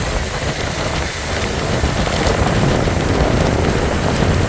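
Car driving at speed, a steady rush of wind and road noise with a low rumble, heard from inside the car. It grows a little louder about a second and a half in.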